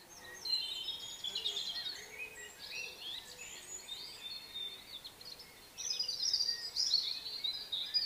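Small songbirds twittering, with many quick chirps and trills overlapping, busier and louder near the end.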